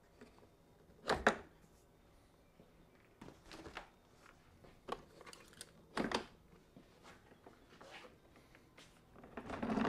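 Handle clamps and fold latches of a cordless lawn mower being worked by hand: a few sharp clicks and clunks, the loudest about a second in and another about six seconds in, with faint handling and scraping between them and more rustling near the end.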